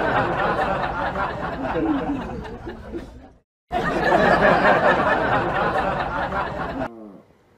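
Audience laughter and chatter, a dubbed-in laugh track. It stops just past three seconds, resumes after a brief silence, and cuts out shortly before the end.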